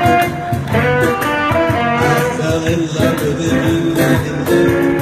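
Live blues-style band playing, with an electric guitar and an acoustic guitar over a steady beat.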